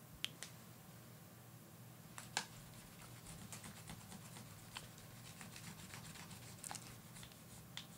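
Faint handling sounds as a cloth wipes the shiny metal back of a handheld radio: a soft rubbing with a few light clicks, the sharpest about two and a half seconds in.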